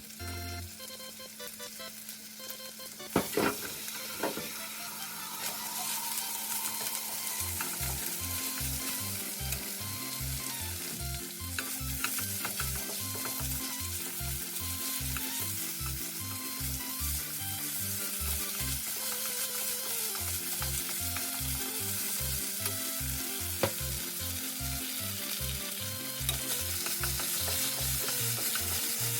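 Food sizzling and frying in a pan, louder after a couple of sharp clatters about three seconds in, with occasional clinks of stirring. Light background music with a repeating bass line plays under it.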